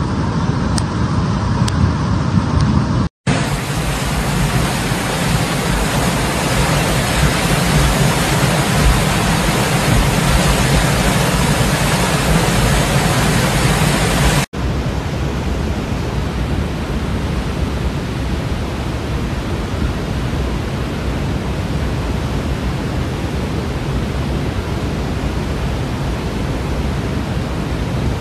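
Loud, steady rushing of water in flood. It changes abruptly twice, about three seconds in and about halfway through, as separate recordings are cut together.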